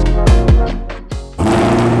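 Electronic music with heavy, deep kick-drum hits, then about 1.4 seconds in an abrupt cut to a C8 Corvette's V8 running steadily through its new aftermarket performance exhaust.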